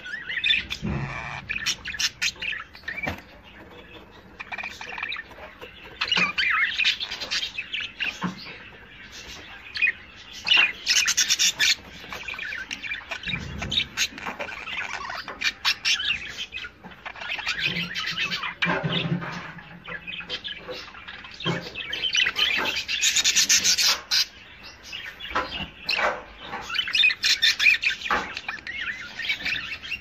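Budgerigars chattering and warbling in a continuous stream of chirps, with louder stretches of fast twittering several times.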